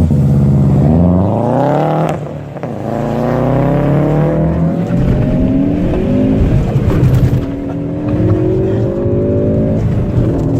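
Subaru WRX's turbocharged flat-four engine accelerating hard through a loud aftermarket exhaust. The revs climb quickly for about two seconds, drop briefly at a gear change, then climb steadily again through a long pull.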